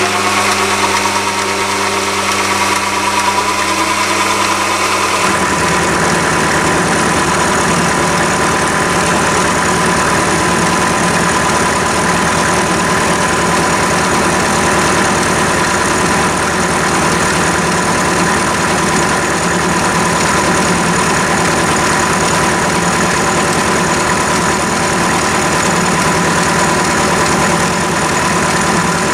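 Chinese mini lathe running with a four-jaw chuck spinning, its carbide insert tool turning a steel bar held against the tailstock centre. A steady whir with a constant high whine; about five seconds in, the low hum gives way to a rougher, noisier sound that holds steady.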